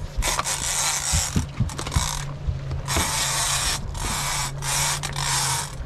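Fishing reel's drag screaming as line is stripped off in surges, a long run and then three shorter ones with brief breaks, while a shark attacks the hooked yellowfin tuna. A steady low hum runs underneath.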